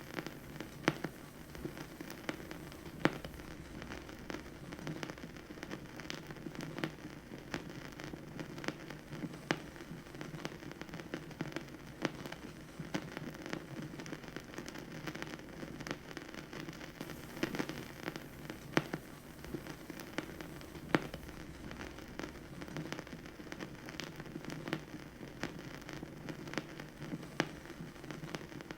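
Vinyl record surface noise on a record player: a steady crackle with scattered sharp pops and clicks.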